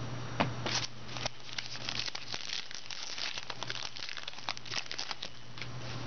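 Trading cards and their plastic packaging being handled, crinkling and rustling with many small, quick clicks and ticks.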